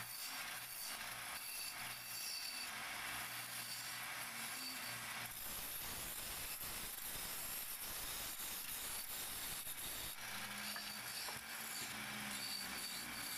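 Wood lathe running while a hand-held turning chisel cuts a spinning wooden spindle: a steady scraping cut over a faint motor hum.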